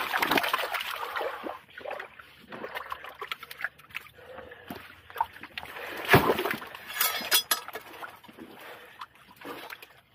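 Seawater splashing and sloshing among shore rocks and pools while rocks are handled and lifted, with a sharp knock about six seconds in.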